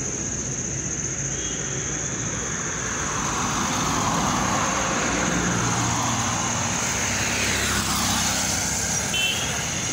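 Road noise with a car passing close by: its tyre and engine sound swells over several seconds, then drops in pitch as it goes past, a little before the end. A steady high hiss runs underneath.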